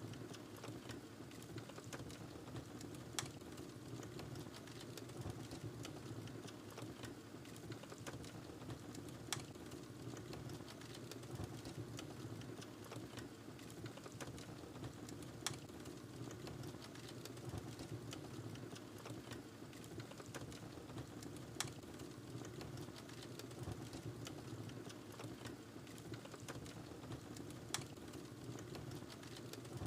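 Wood fire crackling in a fireplace: a soft steady rumble of flames under dense small crackles, with a sharper pop about every six seconds.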